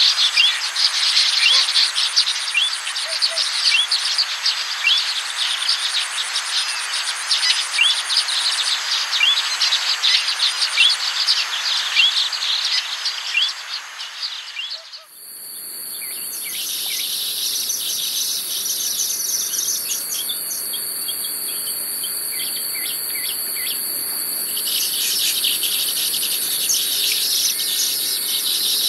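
Weaver birds chirping in quick short calls over a steady high drone of insects. About halfway through, the recording cuts abruptly to a different take with a steadier, higher insect drone and fewer chirps.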